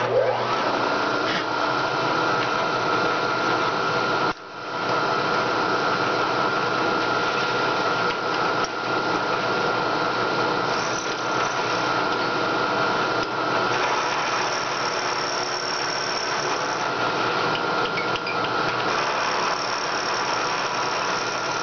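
Milling machine running with an end mill taking a facing cut across the top of a rough-sawn aluminum block: a steady machine whine with cutting noise, briefly dropping about four seconds in. A thin high tone comes and goes in the second half.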